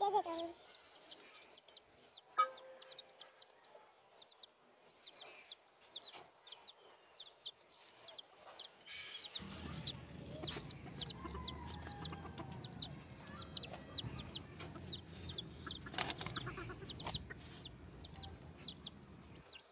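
Domestic chickens calling: a steady run of short, high peeping calls, two or three a second, with a few lower clucks. A low rumbling noise joins about halfway through.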